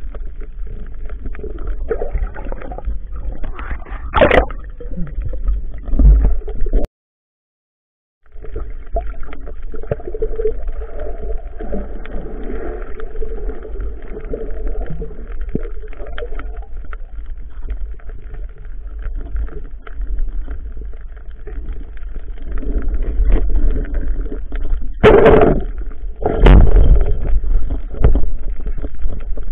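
Underwater noise picked up by a camera in its waterproof housing: a steady low rumble of moving water with crackling, and louder rushes of water about four seconds in and twice near the end. The sound cuts out completely for about a second and a half about seven seconds in.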